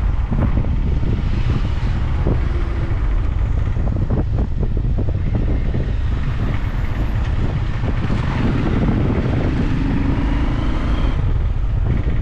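Steady wind buffeting the microphone of a riding motorcycle, with the bike's engine and road noise running underneath. A faint hum rises for a few seconds about eight seconds in.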